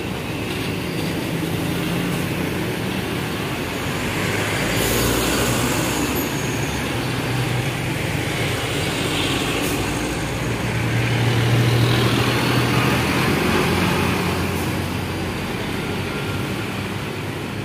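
Busy highway traffic of trucks and motorcycles passing close by: low engine drone and tyre noise that swells and fades as each vehicle goes past. The loudest pass comes about two-thirds of the way through.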